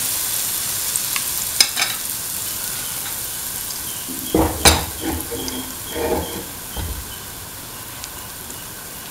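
Semolina pancake batter frying in hot oil in a pan: a steady sizzle, loudest as the batter has just gone in and slowly easing. A few knocks sound over it, the loudest about four and a half seconds in.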